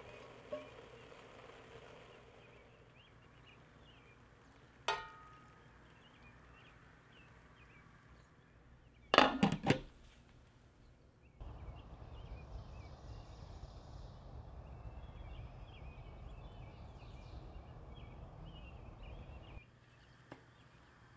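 A single metallic clink, then about nine seconds in a quick clatter of a glass pot lid being set down on a stainless steel pot, several ringing knocks in under a second. After that a steady low rushing noise with faint bird chirps over it, which cuts off near the end.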